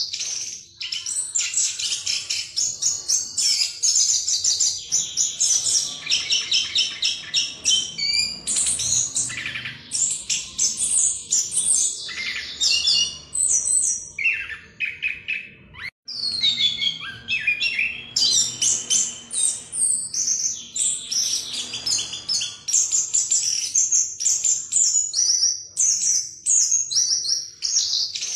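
Chestnut-capped thrush (anis kembang) singing its long, rapid "ngerol" rolling song, a continuous stream of fast, high notes with only short breaks, one of them about halfway through.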